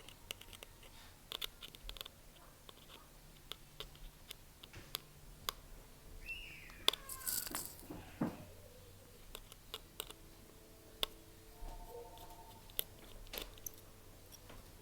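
Faint, scattered clicks and light taps of small repair tools handling iPhone 7 Plus parts during a screen replacement.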